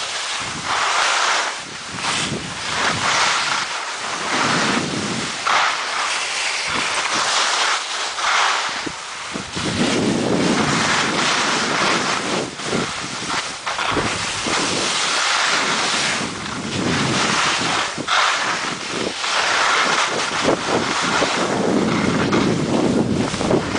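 Skis hissing and scraping over packed snow while skiing downhill, mixed with wind buffeting the microphone. The noise swells and fades every second or two.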